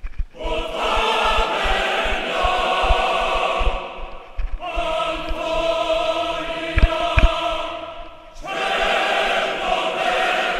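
Choir music: voices singing long held chords in three phrases, each about four seconds long.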